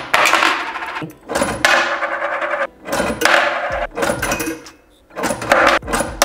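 Cast-iron skeleton mechanical coin bank being worked, its metal arm and lever mechanism clattering in a series of irregular rattles, each lasting about a second, as the arm swings up to the skull's mouth to swallow the coin.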